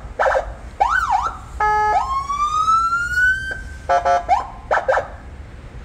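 Landun CJB200 electronic siren through a 200-watt speaker, run through its tones: short chirps and quick yelps, a steady horn blast about a second and a half in, then a tone rising for about a second and a half, and more short chirps after it.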